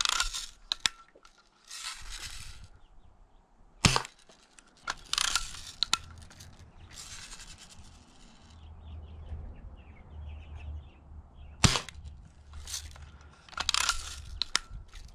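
Daisy Buck 105 lever-action spring-air BB rifle firing twice, sharp cracks about eight seconds apart, with short rasping noises and clicks of the lever being worked to cock the spring between and after the shots.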